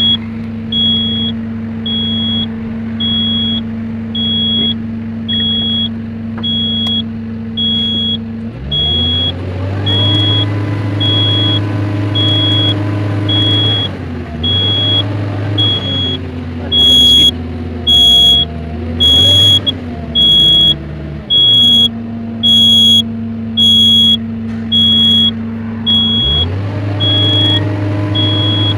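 Komatsu PW180 wheeled excavator's diesel engine running, picking up speed about a third of the way in, settling back, and rising again near the end. Over it a high warning beep repeats about twice a second throughout: the fault alarm the owner puts down to low brake oil pressure. A louder beeping pulses about once a second for several seconds in the second half.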